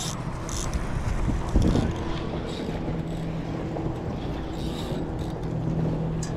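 Wind on the phone's microphone over the sound of water, with a boat motor running steadily from about a third of the way in, and one louder rustle or bump near the start.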